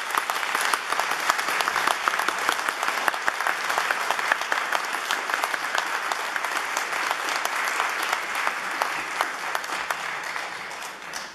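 Audience applauding steadily, a dense patter of many hands clapping, fading a little near the end before cutting off.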